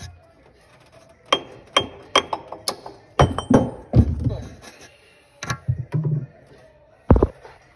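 A run of sharp metallic knocks and clinks, about a dozen over four seconds, then one heavier thunk near the end, as the billet aluminum crankshaft pulley of a 6.5 turbo diesel is worked loose from the harmonic balancer.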